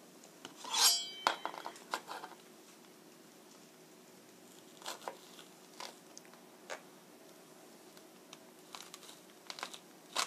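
Kitchen knife slicing a green chili pepper lengthwise on a plastic cutting board: a short metallic clink with a brief ring about a second in, then a few scattered light taps of the blade on the board.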